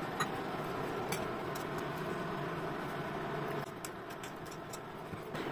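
A steady fan-like hum with a few faint light clicks of steel bowls being handled on the counter. The hum drops a little about three and a half seconds in.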